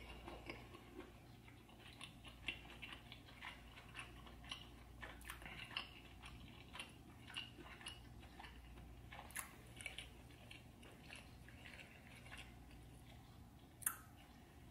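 A person chewing a mouthful of food with the mouth closed: faint wet mouth clicks and smacks at an irregular pace, with one sharper click near the end.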